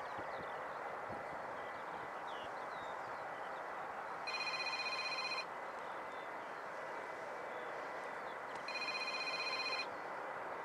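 A trilling electronic ring, heard twice for about a second each, about four seconds apart, over a steady background hiss with faint bird chirps.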